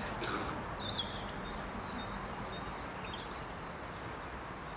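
Outdoor garden ambience: a steady background hum with birds chirping now and then, including a quick run of repeated notes about three seconds in.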